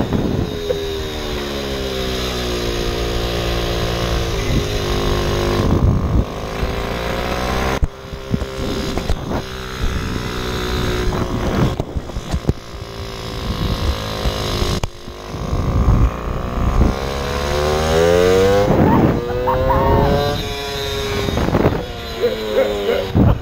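Old two-stroke moped engine running on the move, its pitch sinking and climbing again several times, with brief dips about a third and two-thirds of the way through.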